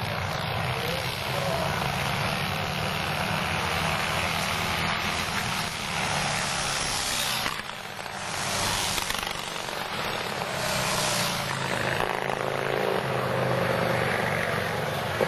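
Engines of several pre-1910 antique board-track racing motorcycles running hard at racing speed, a continuous rapid-firing engine noise. It dips briefly about eight seconds in, then swells as bikes pass close around eight and eleven seconds.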